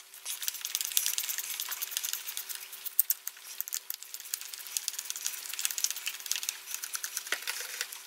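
Screwdriver backing small screws out of a twist-throttle housing clamp: a continuous run of light, rapid metallic clicks and scrapes, with a faint steady hum underneath.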